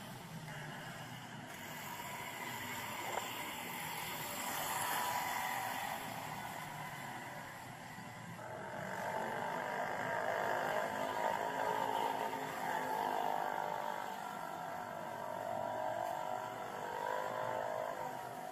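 Street traffic noise, with a motorcycle engine running close by from about halfway through.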